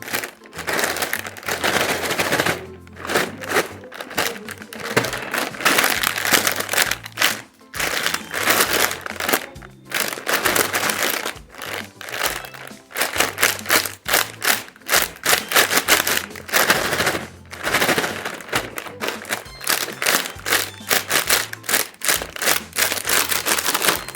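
Plastic chip packets crinkling and rustling in repeated bursts as they are handled, over background music with a steady bass line.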